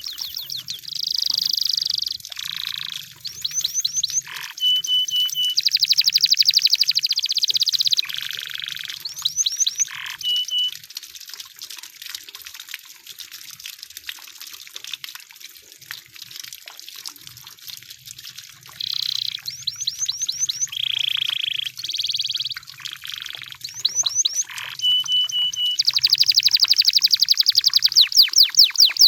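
Canary singing in phrases of fast rolling trills and short whistled notes. It goes quiet for several seconds in the middle, then resumes and ends in a long, loud trill.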